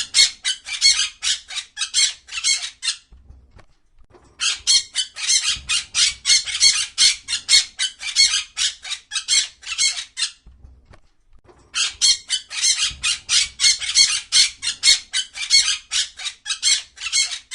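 Parrot squawking: rapid harsh calls, several a second, in three long runs with brief pauses about three seconds in and again near ten seconds.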